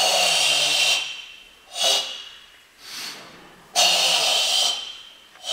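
Forceful controlled breathing of a karateka performing Sanchin kata: two long, hissing exhalations of about a second each, with short, sharp breaths between them.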